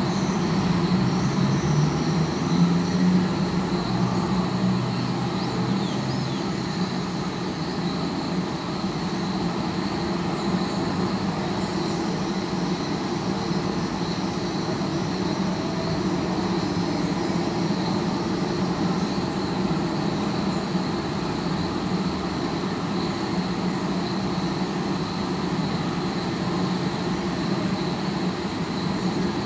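Steady hum of distant city traffic picked up through a sound mirror, a parabolic listening device, with a constant thin high whine running above the rumble.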